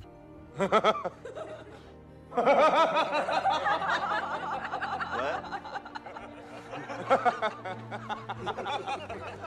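A man laughing, a short burst and then a long run of laughter from about two seconds in, over music.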